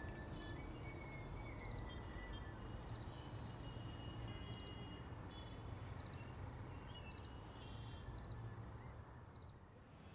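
Faint outdoor background ambience: a steady low rumble with scattered short, high chirps, dropping quieter near the end.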